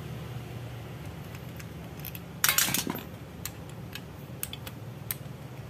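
Metal-on-metal clinking as a screwdriver and small carburettor parts are handled over a shallow metal pan: one short, loud clatter about two and a half seconds in, then a few single light clicks.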